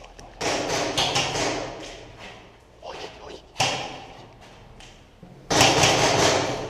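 Several heavy thumps, each fading over about a second, the loudest near the end, with faint sharp clicks between them.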